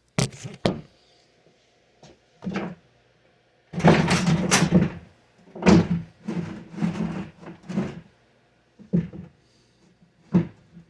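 Knocks and clatter of a chainsaw being handled and set down on a hard surface: a few sharp clicks at the start, a denser rattling clatter about four seconds in, then a run of irregular knocks.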